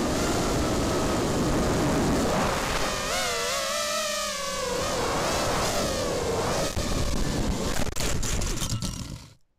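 Quadcopter's four brushless motors and bullnose props whining, heard from the onboard camera with wind rush, the pitch gliding up and down with throttle. Near the end there are a few sharp knocks as the quad comes down, then the sound cuts off suddenly.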